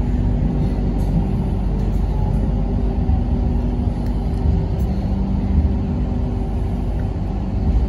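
Hong Kong Light Rail Comeng light rail vehicle heard from inside the car while running along the track: a steady rumble with a low, even hum.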